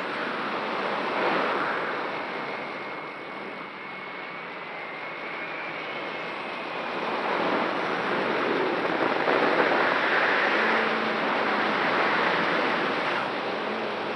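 Large 1000mm X-Class racing quadcopter's motors and 13-inch propellers, heard from its own onboard camera as a rushing whoosh of airflow that swells and fades as it flies. It grows louder from about seven seconds in, as the quad dives, and a faint high whistle from the props is heard during the first half.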